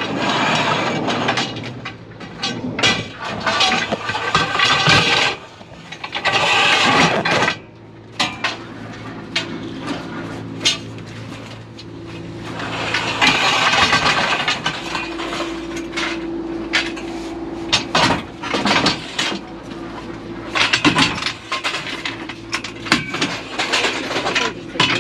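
Work van's sliding side door being opened, then tools and metal equipment clattering and knocking in the van's load area as gear is handled, with a steady low hum underneath.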